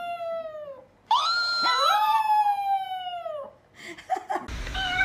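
Chihuahua howling: two long howls that rise and then slowly fall in pitch, the second lasting about two seconds.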